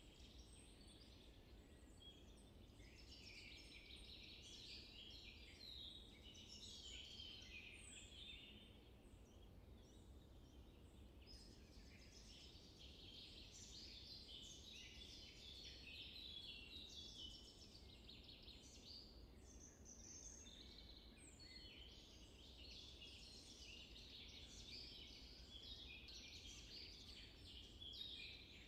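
Faint chorus of small songbirds, many short chirps and trills overlapping without a break, over a low steady rumble.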